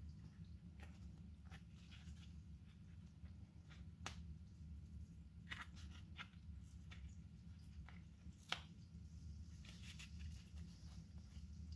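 Faint scattered clicks and rustles of hands handling a replacement subwoofer dust cap over the woofer cone, over a steady low hum.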